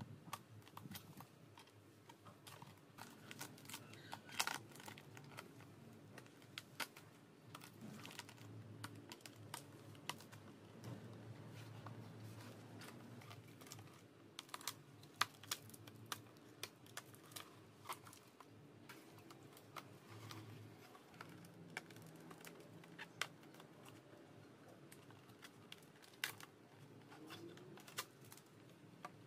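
Faint, irregular clicks and light crinkling as a cutter knife trims pink vinyl sticker film along the edge of a plastic scooter body panel, the loose film rustling.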